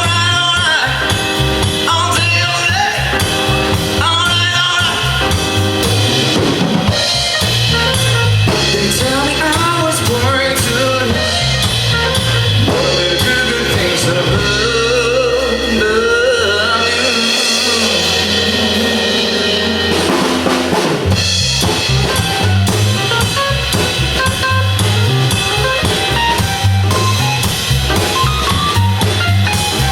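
Live pop band playing, with a drum kit keeping a steady beat under pitched instrument lines.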